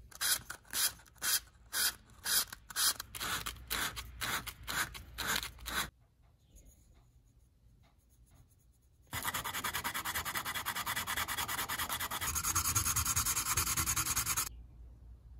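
Sandpaper rasping on a wooden drill handle, worked by hand. First come slow, even strokes about two a second. After a short pause comes a fast, continuous scrubbing with 150-grit paper that stops abruptly.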